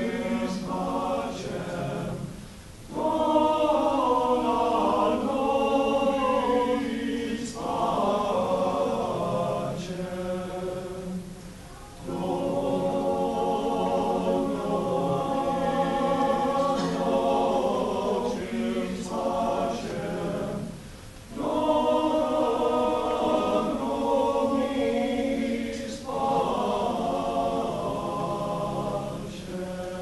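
Men's barbershop chorus singing a cappella in close four-part harmony. Long phrases of held chords break off briefly three times between phrases.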